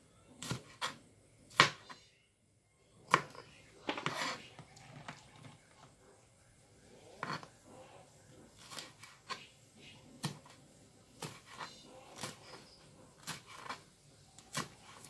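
Kitchen knife slicing green chilies on a plastic cutting board: irregular sharp taps of the blade striking the board, about one a second, with a short pause about two seconds in.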